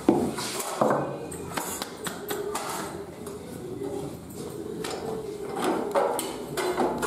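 Kitchen handling sounds while making chapati: a wooden rolling pin knocking on a wooden rolling board, and metal tongs clinking against a tawa. There are several sharp knocks and clinks, the strongest right at the start and about a second in.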